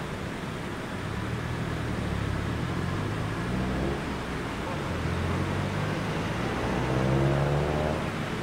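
Large diesel bus engine running and revving, its pitch rising and falling, loudest about seven seconds in.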